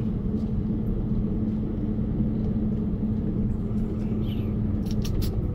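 A 2001 BMW 540i's V8 engine running with road noise heard from inside the cabin while driving, a steady low drone. A few light clicks come near the end.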